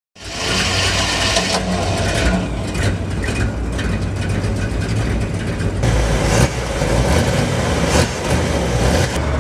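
A 1961 Chevrolet Impala SS V8 running at idle through its exhaust with a low, uneven rumble, swelling briefly about six and eight seconds in.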